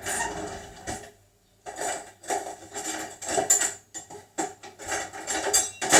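Cutlery and kitchen utensils clattering and rattling as someone rummages through them for a knife. The clatter comes in bursts, with a short lull about a second in.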